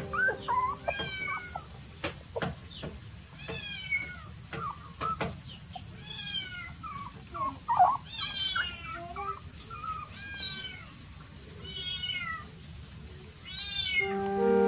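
Newborn puppies squealing and whining: a run of short cries that fall in pitch, one after another, with a few soft knocks, over a steady high hiss.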